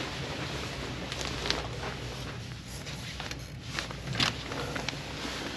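The steady low hum of a ferry's onboard machinery, with a few faint clicks and rustles scattered over it.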